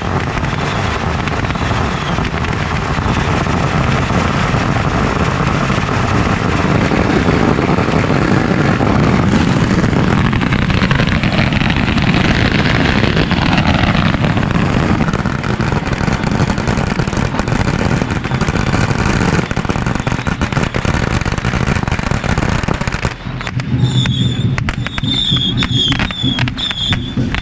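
A long string of firecrackers going off in a continuous rapid crackle, thinning to scattered separate pops near the end.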